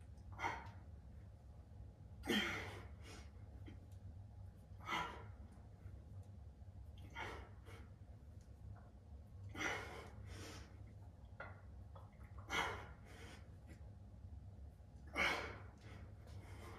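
A man exhaling hard in short, forceful breaths, about one every two to three seconds: effort breathing through a set of bicep curls. A steady low hum runs underneath.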